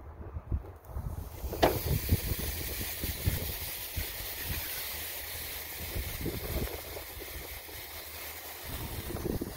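Thick porterhouse steak laid onto a hot charcoal grill grate: a clack about a second and a half in, then steady sizzling as the meat starts to sear. A low wind rumble on the microphone runs underneath.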